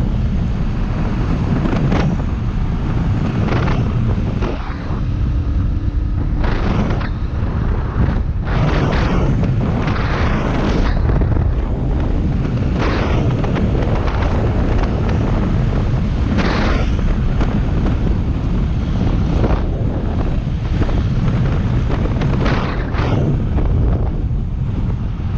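Heavy wind buffeting the microphone of a moving dirt bike, over a low steady rumble of engine and road noise; the gusts flare up irregularly every second or two.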